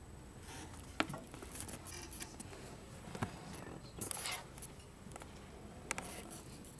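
Quiet classroom room sound with handling noise as the recording phone is moved: a few sharp clicks and knocks, one about a second in, and a short rustle about four seconds in.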